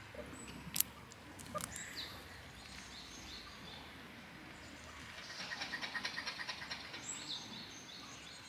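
High, short animal chirps, with a rapid chattering run of about ten notes a second in the middle. Two sharp clicks come in the first two seconds.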